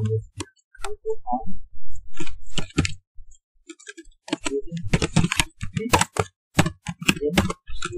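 Computer keyboard typing: irregular keystroke clicks, with a short lull about three seconds in followed by a quicker, denser run of keys.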